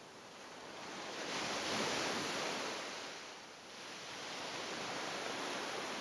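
Small ocean waves breaking and washing up a sandy beach: the surf swells to its loudest about two seconds in, eases off, then a second wash builds again.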